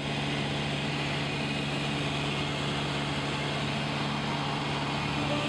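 Cessna 172's piston engine and propeller running steadily in cruise flight, heard from inside the cabin as an even low hum over a wash of wind noise.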